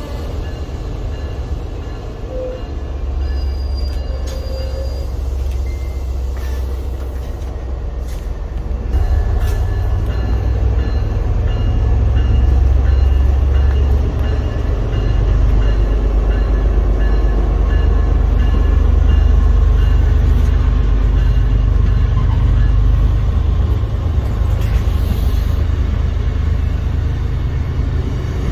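A train running on the tracks: a low rumble that grows louder about nine seconds in and stays strong, with faint steady high tones above it.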